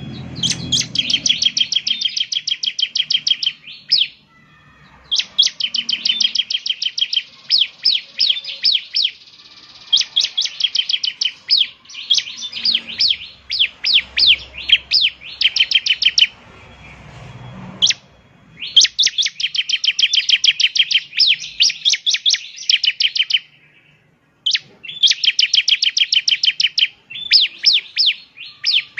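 Bar-winged prinia (ciblek) singing: fast runs of high, sharp notes, about eight a second, in phrases of a few seconds broken by brief pauses.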